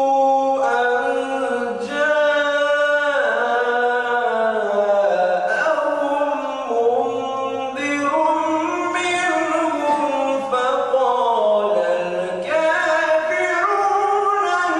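Unaccompanied male Quran recitation in tajweed style: one voice chanting long, ornamented phrases with held notes that glide up and down in pitch.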